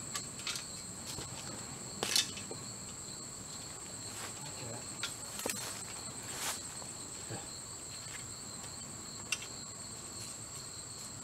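A steady high-pitched insect drone throughout, with scattered sharp clicks and knocks as the metal frame and cable of a Summit Viper climbing tree stand are handled and fitted around a tree trunk; the loudest knocks come about two seconds in and again past the middle.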